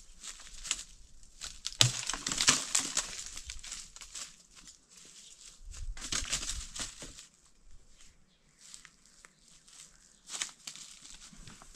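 Leafy tree branches rustling and shaking as they are worked with a long stick, with a sharp snap about two seconds in and further bursts of rustling around six and ten seconds in.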